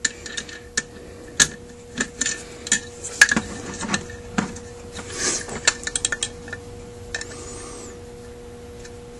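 Small metal clicks and taps of a seat-driving tool turning a brass needle seat into the cast top cover of a Zenith 28 carburetor. A quick run of light ticks comes about six seconds in, then the handling goes quieter.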